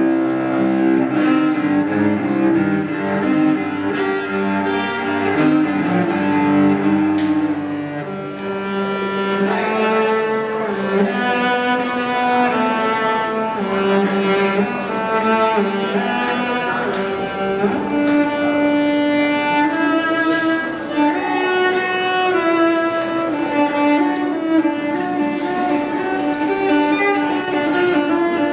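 Cello being bowed, playing a melody of held notes that shift in pitch, with a change in texture about eight seconds in.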